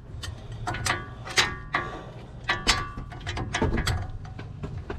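Socket ratchet clicking and metal tools clinking as the 18 mm brake caliper bolts are turned out; the bolts come loose easily.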